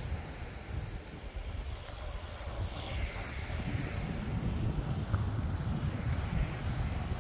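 Wind buffeting the microphone: a low, gusty rumble that gets stronger about halfway through.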